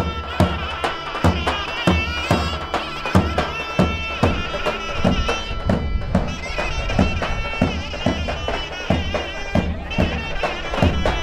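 Traditional folk dance music: a reedy wind instrument plays a bending, ornamented melody over regular drum beats.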